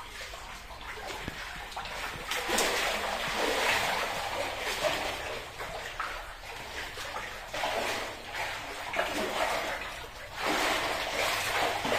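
Shallow water splashing and sloshing as several people wade and sweep their hands along the bottom, groping for fish, in irregular surges.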